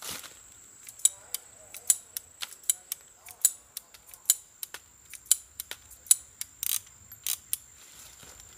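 Heritage Rough Rider single-action .22 revolver being worked by hand: a series of sharp metallic clicks over about six seconds, the loudest roughly once a second, as the cylinder is turned chamber by chamber.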